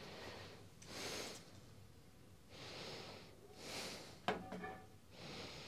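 Several soft breaths close to the microphone, spaced about a second apart, with a brief light knock a little over four seconds in as a metal bracket meets the printer's side panel.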